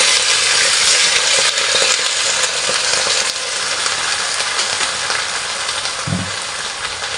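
Water poured into a hot wok of rice vermicelli and napa cabbage, sizzling and hissing as it hits the hot pan and turns to steam. The sizzle eases off a little after about three seconds.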